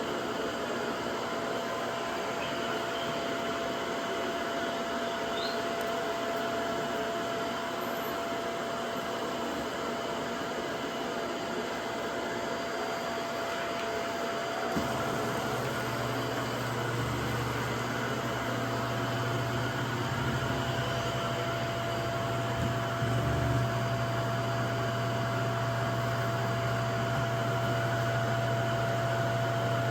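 Vacuum cleaner running steadily with a constant whine. About halfway through, a deeper hum joins and stays.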